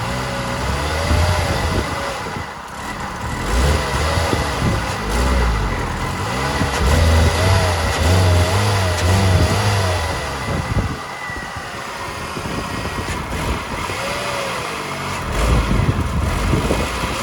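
Toyota Yaris 1.3 VVT-i four-cylinder engine running, its pitch wavering up and down unevenly with low throbs that surge and fade. This is the hesitation or misfire the owner is trying to trace.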